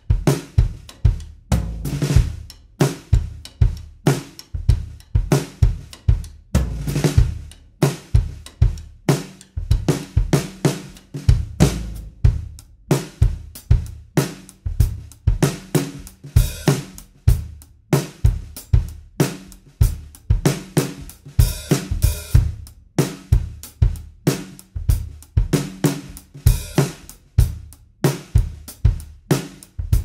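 Drum kit groove played with sticks, led by a Pearl Session Studio Select 14x5.5 snare with a birch-mahogany shell and coated heads, over bass drum and hi-hat. A couple of cymbal crashes ring out past the middle.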